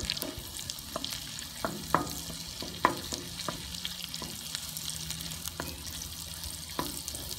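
Pork belly, garlic, ginger and onion sizzling in oil in a nonstick wok, stirred with a wooden spoon that knocks against the pan in a few sharp clicks.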